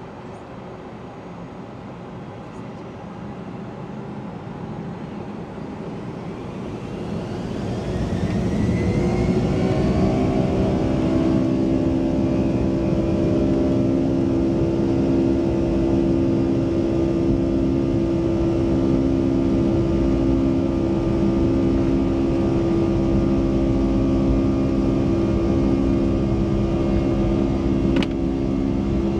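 Boeing 757-200's Pratt & Whitney PW2037 turbofan engines spooling up to takeoff thrust, heard from inside the cabin. A whine rises in pitch as the engines get louder over about eight seconds, then settles into a steady loud engine drone with a pulsing hum as the takeoff roll goes on.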